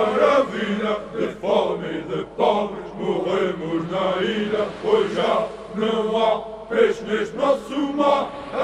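Voices chanting, with a pitched vocal line that rises and falls and breaks every fraction of a second.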